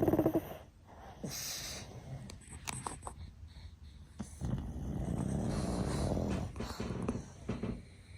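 Pugs snoring: a loud buzzing snore that cuts off about half a second in, a quieter stretch with a few faint clicks, then a long low snore from about halfway until shortly before the end.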